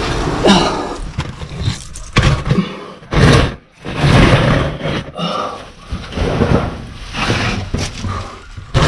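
A person straining through a tight cave crawl: irregular loud bursts of heavy breathing and grunting from exertion, mixed with scraping and shuffling against rock.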